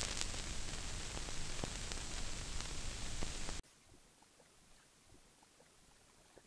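Steady hiss with scattered clicks and crackles from the 1972 16mm film's optical soundtrack, running under the opening title card. The hiss cuts off abruptly about three and a half seconds in, leaving only faint, sparse crackle.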